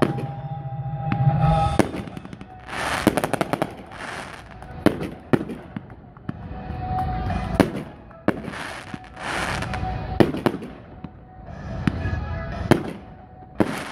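Aerial fireworks display: shells bursting with a string of sharp bangs, roughly one every second or so, and longer noisy bursts in between.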